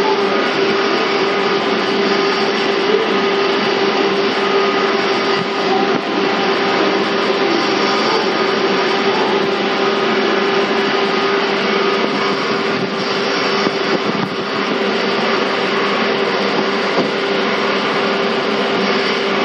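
Interior running sound of a 485-series electric multiple unit, heard aboard a motor car, MoHa 484. The train is travelling at a steady speed, with constant rolling and motor noise and a steady droning tone underneath.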